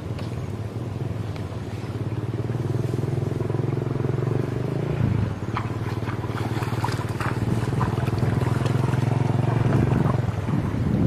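A small engine running steadily at an even speed, with a few brief clicks and rustles about halfway through.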